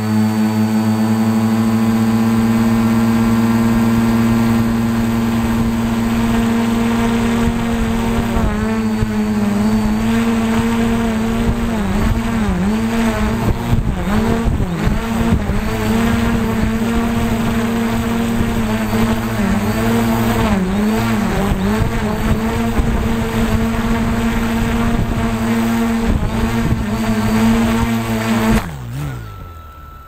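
Quadcopter's electric motors and propellers whining steadily, heard close up from the drone's own camera. The pitch dips and surges again and again as the motors work against high wind. Near the end the sound cuts off sharply and winds down in pitch as the drone comes down in the grass.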